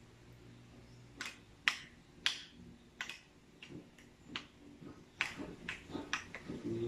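A metal spoon clinking against a small bowl while stirring garlic into mayonnaise. It gives sharp, short clicks about twice a second, starting about a second in and coming a little faster near the end.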